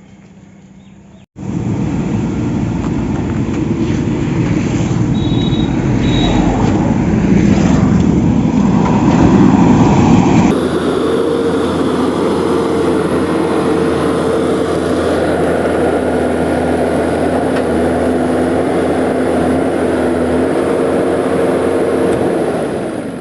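A motor running steadily, starting suddenly about a second in. About ten seconds in it cuts to a smoother, steady hum with a held tone, which fades near the end.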